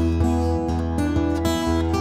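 Acoustic guitar strummed chords, with notes ringing on and the chord changing every half second or so.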